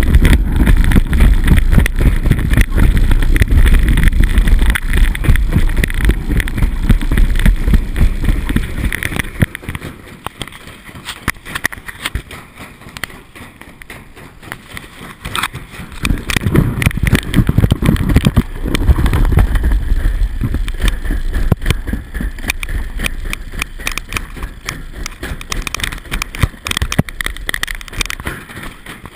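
Toboggan sled running down a stainless steel chute: the rumble and rattle of the sled in the metal trough, with wind on the microphone. Loud at first, quieter from about ten to sixteen seconds in, loud again, then dying down near the end as the sled slows for the finish.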